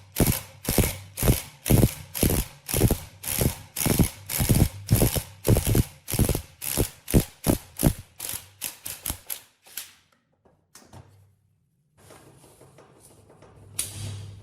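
A hand tool worked back and forth in quick, even strokes, about three to four a second, slowing and fading out about ten seconds in. After a short gap, faint handling noise follows.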